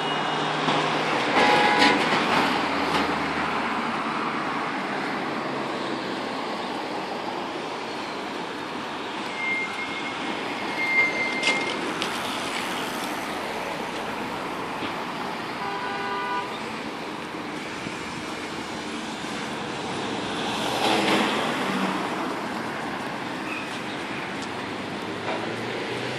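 Road traffic on a city street: cars and vans driving past in a steady wash of tyre and engine noise that swells as vehicles go by about two, eleven and twenty-one seconds in. Short pitched toots come twice, near the start and again past the middle.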